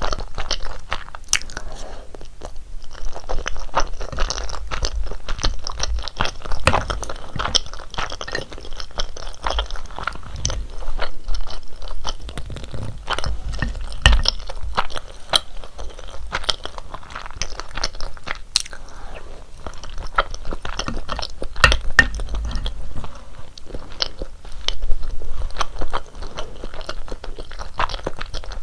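Close-miked chewing and mouth sounds of someone eating rosé tteokbokki, chewy rice cakes in a thick creamy sauce, with many short clicks and smacks following one another.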